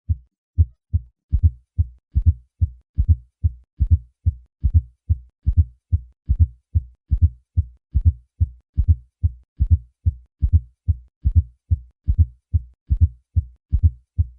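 Heart sounds with a fourth heart sound (S4 atrial gallop): a low-pitched extra beat in late diastole just before each lub-dub of S1 and S2, repeating steadily at about seventy cycles a minute. An S4 is the sign of abnormal, poorly compliant ventricular filling, from forceful atrial contraction against a stiff left ventricle.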